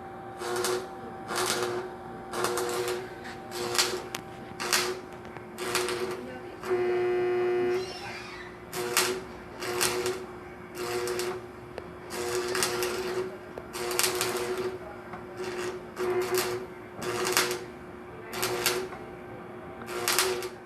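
Electric welding arc struck in short bursts, roughly one a second, each a crackling hiss, as in stitch or tack welding, over a steady hum. About seven seconds in the bursts pause and a louder steady hum sounds for about a second.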